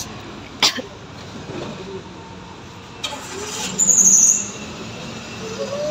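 A short, high-pitched squeal about four seconds in, the loudest sound here, over a steady low hum, with a sharp click just before one second in.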